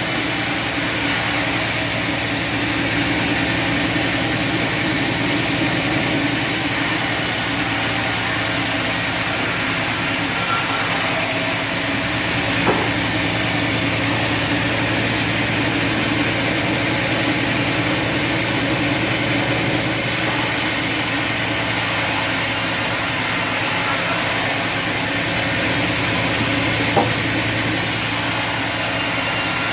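Bandsaw sawmill running steadily, its motor humming as the blade cuts wood, with the hiss rising and falling every few seconds. There is a short sharp tick about halfway through and another near the end.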